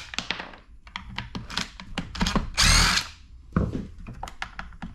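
Power drill-driver with a T27 Torx bit running briefly, about two and a half seconds in, backing a screw out of a chainsaw's housing. Clicks and knocks of the tool and the saw being handled come before and after it.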